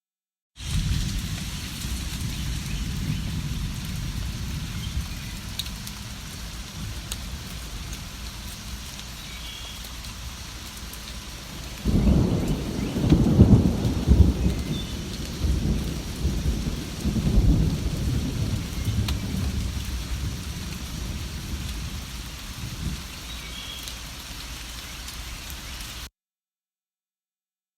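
Steady rain falling, with a roll of thunder that breaks in about halfway through and rumbles on for several seconds before fading. The sound drops out to silence for a moment at the start and again near the end.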